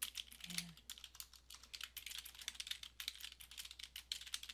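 Fast typing on a computer keyboard: many quick, irregular key clicks with no pause.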